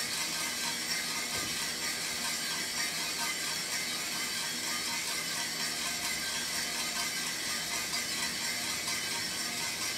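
Small drum coffee roaster running: a steady, continuous mechanical noise from its turning drum, motor and exhaust fan.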